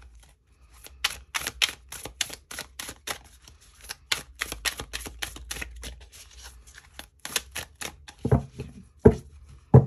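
A deck of tarot cards being shuffled by hand in an overhand shuffle: a quick, even run of soft card slaps, about four a second, followed by a few heavier knocks near the end.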